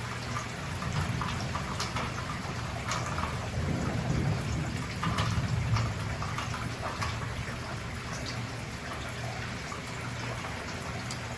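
Heavy hurricane rain coming down, with many sharp drop hits close by and a low rumble that swells about four seconds in and fades by six.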